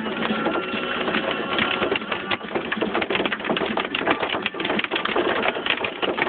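Hailstones pelting a car's windshield and body, heard from inside the cabin as a dense, rapid, irregular clatter of hits.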